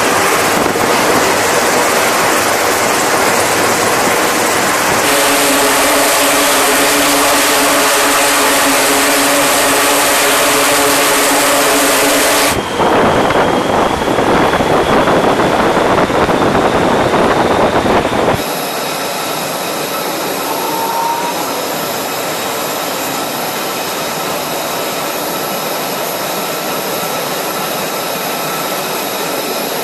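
Aircraft-carrier flight-deck noise: a steady rush of wind and machinery, with steady engine tones for several seconds in the middle, then a change about eighteen seconds in to a quieter, steady high whine of jet engines.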